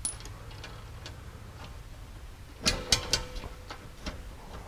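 Bolts and cup washers clicking and clinking against an aluminium skid plate as they are fitted by hand, with light scattered ticks and a short cluster of sharper metallic clinks a little past halfway.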